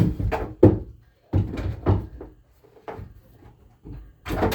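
Hollow knocks and clattering of a plastic kennel tray and wooden boards being handled and set into place, in several irregular clusters of bumps.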